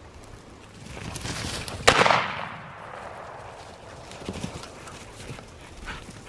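A single shotgun shot about two seconds in, fired at flushing bobwhite quail, its report trailing off over about a second. A rushing noise builds in the second before the shot.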